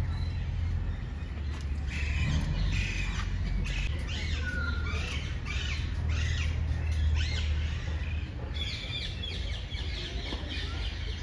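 Birds calling: many short squawks and chirps, overlapping and repeating, begin about two seconds in and carry on, over a low steady rumble.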